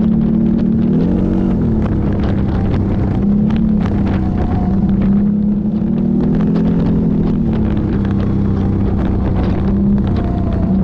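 ATV engine running while riding, its pitch rising and falling gently with the throttle, with scattered clicks and knocks.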